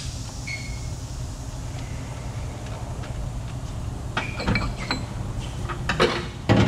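Drive shaft of a Suzuki Every 4x4 being worked free from under the van by hand: a few metallic clicks and short squeaks from about four seconds in, then loud knocks near the end as the shaft comes out. A steady low hum runs underneath.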